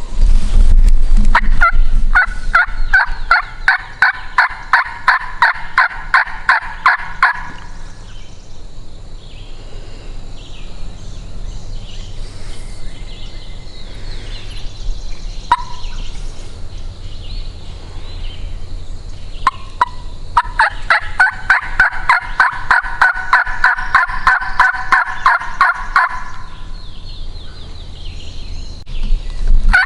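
Turkey call worked in two long runs of rapid, evenly spaced hen-like notes, each about six seconds long, the second starting about twenty seconds in and another beginning right at the end. A call sent out to make a gobbler answer.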